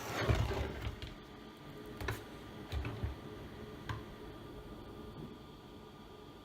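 Handling a laptop and pressing its keys: a rustle with low knocks in the first second, then a few sharp clicks about two, three and four seconds in, over a faint steady hum.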